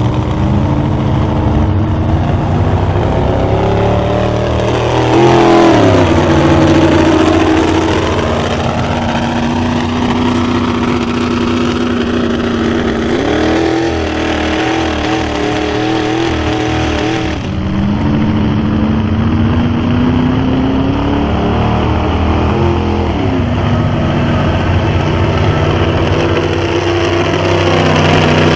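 Lifted Ford mud truck's engine running hard under load while dragging a weighted pull sled. Its pitch rises and falls several times as the throttle is worked.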